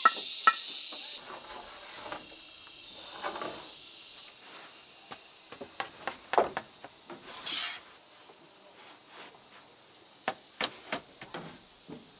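Scattered sharp clicks and knocks over a steady high hiss; the hiss drops away about a second in and again about four seconds in.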